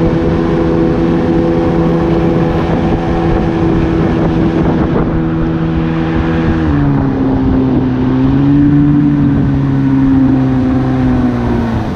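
A small aluminium boat's motor running steadily under way; about seven seconds in its revs drop, the note wavers, then sinks a little further near the end.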